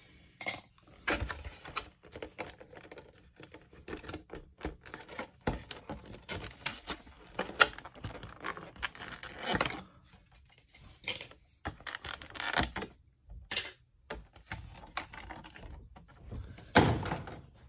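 A clear plastic blister insert from a trading-card collection box being handled and worked free, giving a long irregular run of plastic crackles, clicks and taps.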